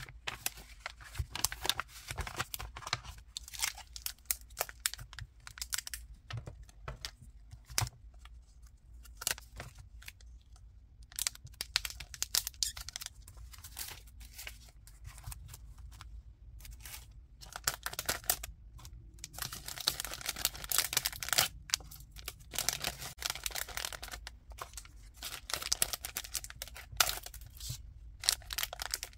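Hands handling paper packets and plastic packaging, with paper and cellophane rustling and crinkling and small taps as items are set down. The crinkling gets busier near the end, when a bag of foil- and cellophane-wrapped candies is handled.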